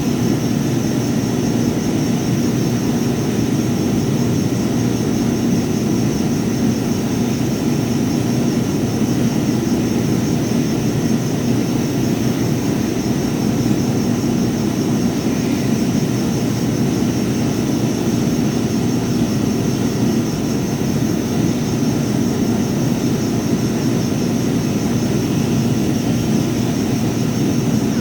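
A power sander running steadily, with an even motor whir and a high hiss, unbroken throughout.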